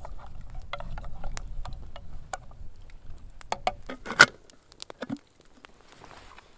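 Wood campfire crackling and popping under a metal cooking pot, with clinks of the pot being handled; one sharp metal clink about four seconds in is the loudest sound. A low rumble runs under the first four seconds.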